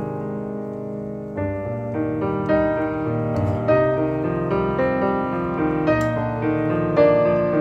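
Background piano music, a melody with notes struck roughly every half second.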